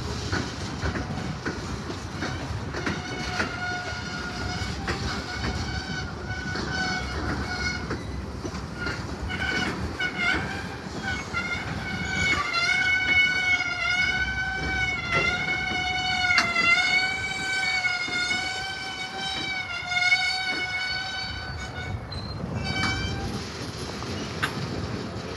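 Freight train boxcars rolling past, steel wheels rumbling and clacking over the rail joints. A high, wavering metallic squeal from the wheels comes in a few seconds in, grows loudest in the second half, and dies away near the end.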